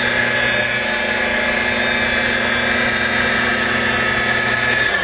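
Rotary buffer running steadily at a constant speed, spinning its pad with compound against fiberglass gel coat to cut out sanding marks and swirls.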